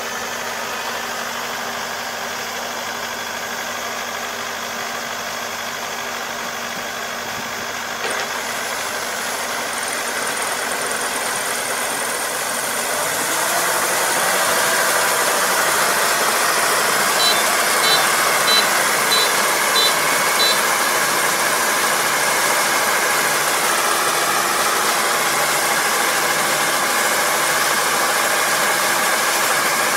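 Rice combine harvester's diesel engine running while its unloading auger discharges grain into a truck; about 13 seconds in the engine note rises and gets louder. A short run of high pips sounds midway.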